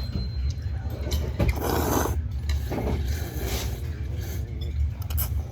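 Jjajangmyeon noodles being slurped and chewed, with short bursts of slurping about a second and a half in and again near three seconds, over a steady low hum.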